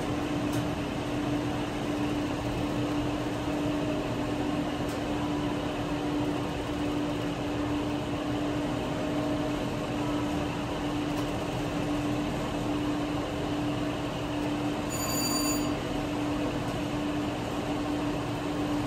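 VGT 9-line slot machine spinning its reels over casino floor noise, with a steady electronic tone throughout. A brief high chime sounds about fifteen seconds in.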